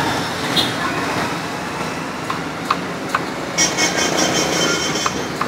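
Steady street traffic noise with a few sharp knife taps on a wooden cutting board as vegetables are sliced. A high-pitched vehicle horn sounds for about a second and a half past the middle.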